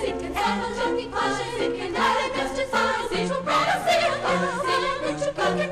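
Girls' choir singing with instrumental accompaniment, played back from a vinyl LP.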